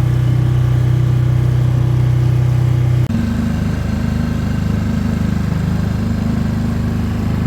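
Mercury outboard motor running steadily, pushing an inflatable boat. About three seconds in its note changes abruptly to a slightly quieter, different-pitched drone.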